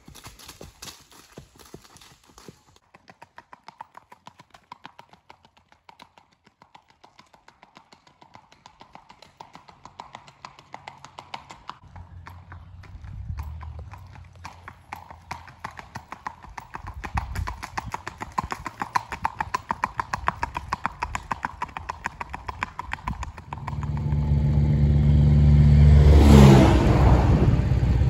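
Hoofbeats of a gaited horse, a quick even clip-clop, on a paved road. Near the end a motor vehicle drives past, growing loud and dropping in pitch as it goes by.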